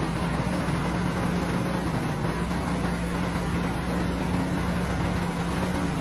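Excavator's diesel engine running at a steady, even pitch, with no bucket knocks or impacts.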